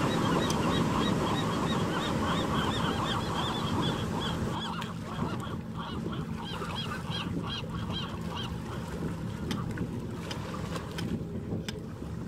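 Ocean surf washing ashore, with a flock of birds giving a rapid series of short honking calls over it for the first eight seconds or so; the calls then fade out. A few sharp clicks come near the end.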